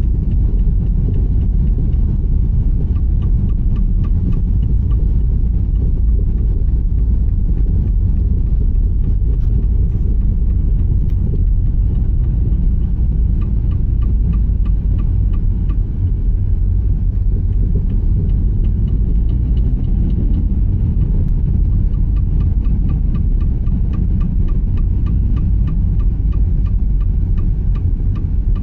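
Opel Astra J running, with a loud steady low rumble and faint fast ticking that comes through more in the second half. The front-suspension knock behind it is an inner CV joint on the driveshaft binding in one position and pushing the shaft against the steering knuckle.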